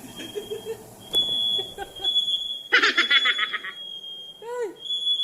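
Smoke detector sounding a steady high-pitched tone in long beeps with short breaks between them. It was set off by smoke from frying eggs with the range hood not switched on. A brief rattling burst comes about three seconds in.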